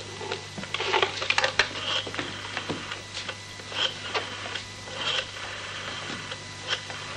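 Desk telephone being picked up and dialled: a dense run of clicks and rattles in the first two seconds, then scattered clicks, over a steady low hum.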